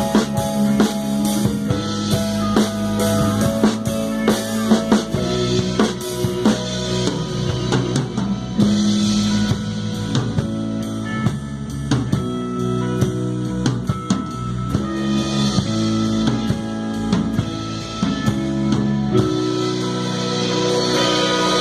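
A live band playing an instrumental passage: drum kit with kick and snare keeping a steady beat under sustained guitar, bass and keyboard chords. Near the end the kick drum and bass drop out, leaving the chords ringing with a cymbal wash.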